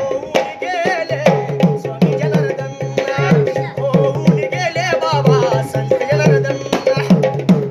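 Hand-played two-headed barrel drum (dholki) beating a steady folk rhythm, its bass head sliding up and down in pitch between strokes, in an instrumental break between sung verses.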